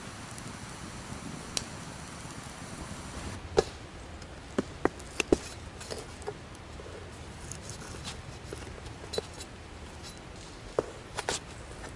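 Small wood fire crackling in a twig stove. After a few seconds come scattered sharp clicks and taps of a knife slicing a pepperoni stick against a pan.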